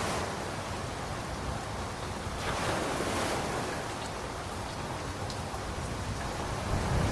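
Ocean waves washing in under a steady hiss of rain, one wave surging up about two and a half seconds in. A low rumble comes near the end.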